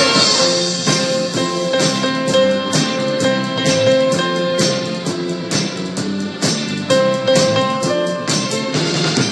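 Live orchestra and band playing an instrumental passage, with piano, drums and a plucked-string part over a steady beat. A long held note sounds through the first half and returns shortly before the end.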